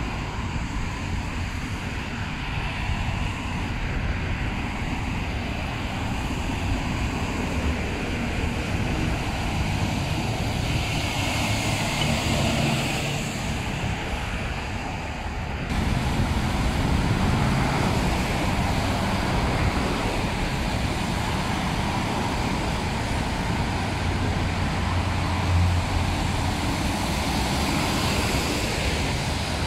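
Steady road traffic passing close by on a wet multi-lane road: car engines and tyre hiss on wet pavement, with a tanker truck going by close near the end. The sound changes abruptly about halfway through.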